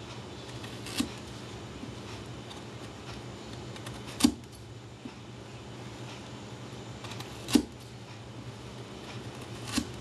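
Kitchen knife making repeated slicing cuts down into a block of raw carrot, each cut ending in a sharp tap of the blade, four taps a few seconds apart, the middle two the loudest. A low steady hum runs underneath.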